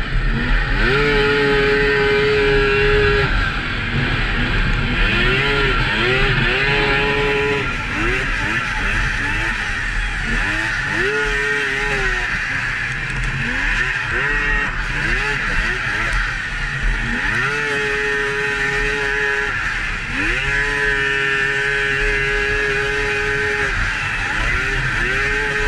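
Polaris XCR 800 snowmobile's two-stroke triple engine, heard from the rider's seat, revving up under throttle, holding, then easing off, over and over. A steady hiss runs underneath.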